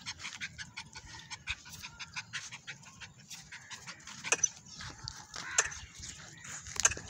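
A puppy panting, with many short scuffs and clicks as it moves about and tugs on dry dirt ground; a few louder clicks come in the second half.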